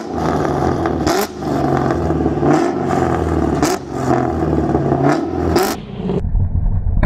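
Straight-piped New Edge Mustang GT V8 revving hard over and over. Each rise in pitch breaks off with a sharp crack, about five times, and near the end it settles to a low rumble.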